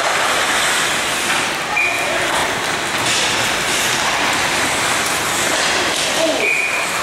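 Ice hockey game sound: a steady noisy wash of skates scraping the ice, with a few sharp stick or puck knocks and a couple of short shouts from the players.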